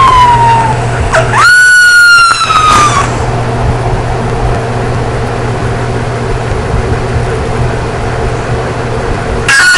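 Malamute–golden retriever mix puppy whining in the first three seconds: a falling whine, a quick rising yelp, then a long high whine that slowly sinks. After that only a steady low hum remains, and guitar music comes in just before the end.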